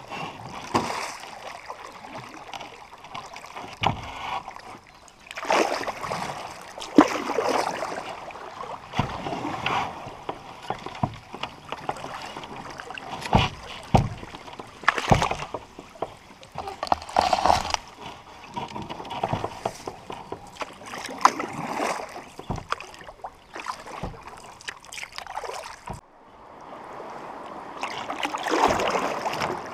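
Canoe paddle strokes on calm river water: irregular splashes, swirls and drips as the canoe is paddled along. Partway through, it rustles and scrapes as it pushes through reeds.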